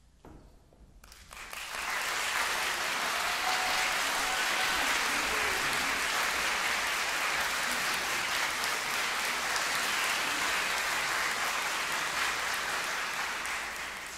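Audience applauding, greeting the conductor as he walks on stage. The clapping swells in about a second in, holds steady, and dies away near the end.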